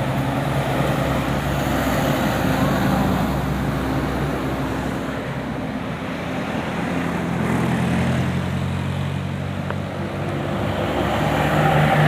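Large bus engine running steadily amid road traffic noise, growing louder near the end.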